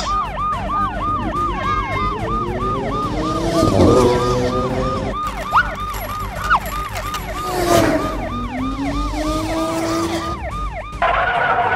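Police siren in a fast yelp, wailing up and down about four to five times a second, with a car swelling past beneath it about four and eight seconds in.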